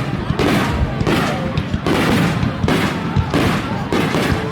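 Aerial fireworks going off in quick succession, about two or three sharp bangs a second, each with a rumbling tail.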